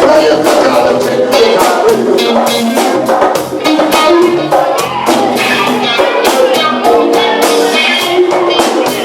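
A live funk band playing loudly: a drum kit keeps a steady beat under guitar and other pitched parts.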